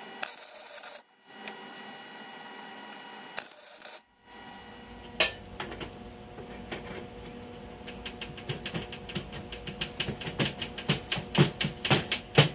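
Welding hiss in short stretches on a trike's tube frame, then from about five seconds in, metallic clicks and taps that grow faster and denser as a hand tool works the bolts of a bolt-on crash bar.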